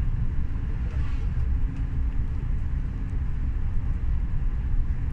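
Steady low rumble of a moving train, heard from on board, with a few faint ticks.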